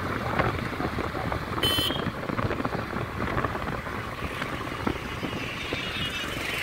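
Wind rushing over the microphone on a moving motorcycle, with the engine and road noise underneath, steady throughout. A short high-pitched sound cuts in briefly a little under two seconds in.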